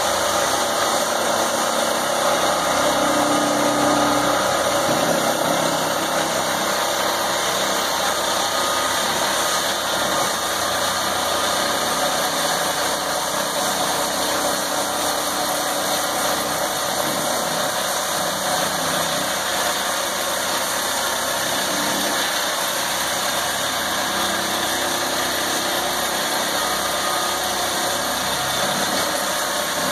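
Diesel construction machinery running steadily: the engine of a tracked Geopier aggregate-pier rig and a John Deere compact track loader working crushed stone around the rig's mandrel. It is a continuous, even engine noise with no distinct impacts.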